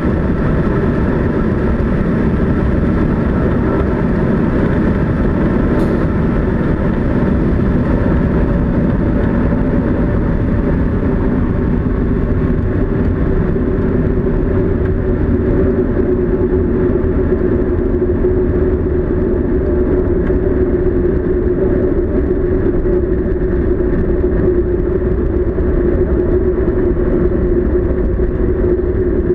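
Steady rush of wind and rolling noise inside the cockpit of the KillaJoule electric streamliner motorcycle at high speed, with a short sharp click about six seconds in. The sound then loses its high end as the bike slows after the measured mile with its brake chute out, settling to a lower, steadier rumble.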